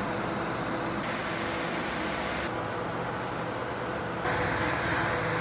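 Steady background noise, an even hiss with a faint low hum, as from fans or ventilation. It changes in brightness at about one, two and a half and four seconds in as the ambient sound shifts.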